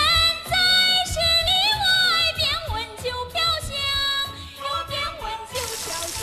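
A woman singing a folk-style melody, with bending, held notes, over accompaniment with a steady beat. Near the end a brief hiss of food sizzling in a hot wok comes in under the music.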